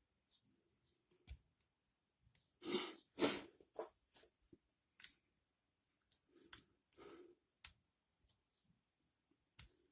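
Lock picks clicking and scraping inside the keyway of an ASSA Ruko 2 padlock held under a tension wrench: irregular small clicks and scratches, the loudest pair about three seconds in.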